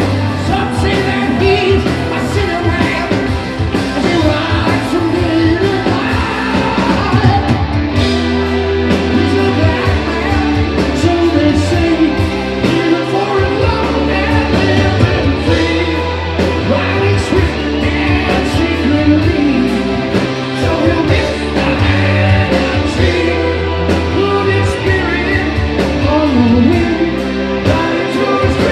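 Hard rock band playing live: a male lead singer over electric guitar, bass, drums and keyboards.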